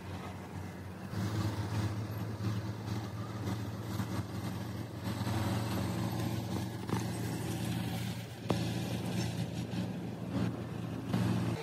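Hydraulic excavator's diesel engine running steadily, getting louder about a second in.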